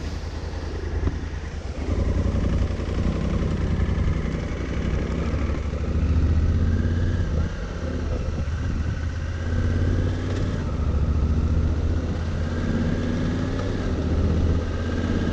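Honda Africa Twin's 1000 cc parallel-twin engine running as the motorcycle is ridden, its note rising and falling with the throttle and dropping briefly twice, about two seconds in and again about halfway through.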